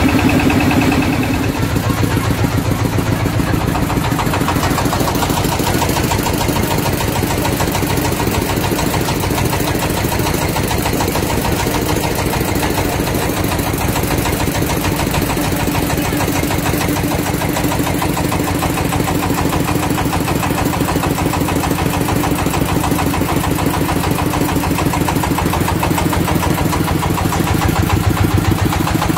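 Wooden passenger boat's inboard engine running steadily under way, close by in the cabin, a fast even chugging that runs without a break.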